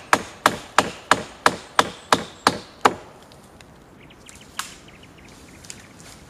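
Rapid, even hammer blows driving a nail into the wooden batten that holds down a shed's roof tarp, about three strikes a second, nine in all, stopping about three seconds in. A single lighter knock follows about a second and a half later.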